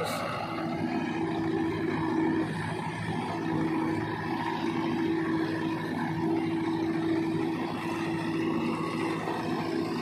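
Backhoe loader's diesel engine running under load as its backhoe arm works, with a steady, higher-pitched hum over the engine drone that drops out briefly about two and a half seconds in.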